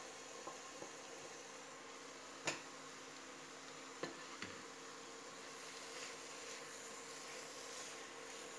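Khoya being scraped from a pan into a kadhai of carrot halwa: a sharp knock about two and a half seconds in and two smaller knocks about four seconds in, of the pan and spatula against the kadhai. After that, a wooden spatula stirs the halwa with a soft scraping, over a faint steady hum.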